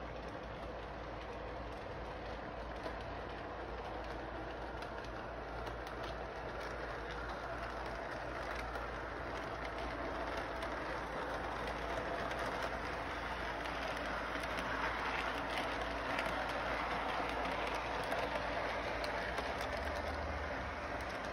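Electric model train rolling along its track, with a steady rumble of motor and wheels that grows louder toward the later part as the train comes nearer, over a constant low hum.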